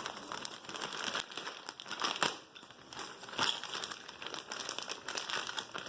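Packaging being opened and handled by hand, crinkling and rustling unevenly with a few sharp clicks.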